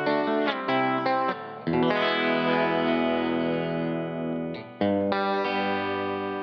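Music: electric guitar with distortion and effects. Several short struck chords, then a long ringing chord, and a fresh chord struck near the end.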